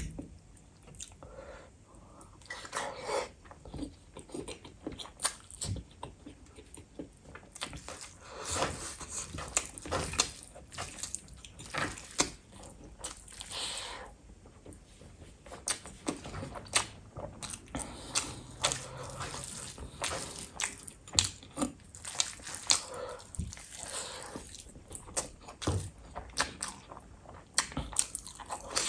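Close-miked eating sounds: wet squishing of a hand kneading rice and gravy into a ball, and mouthfuls of rice being chewed, full of short irregular wet clicks.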